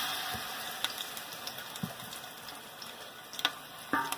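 Bone-in chicken pieces searing in hot oil in a pot: a steady sizzle with a few sharp clicks, a little louder in the first couple of seconds.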